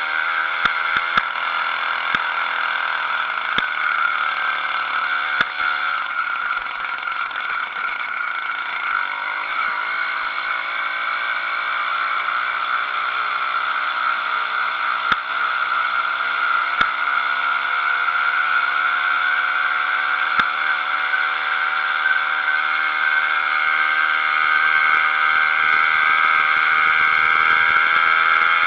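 80cc two-stroke motorized bicycle engine running under way, a steady buzz whose pitch and loudness climb gradually in the second half as it picks up speed. Scattered sharp clicks ride over it.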